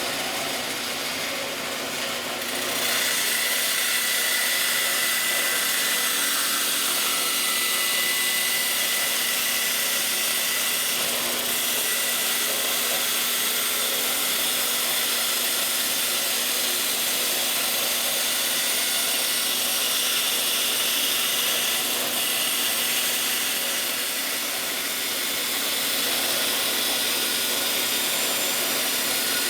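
Bandsaw with a 1/4-inch blade running and cutting a circle from a blank that is turned on the pivot pin of a circle-cutting jig: a steady sawing noise that gets a little louder about three seconds in.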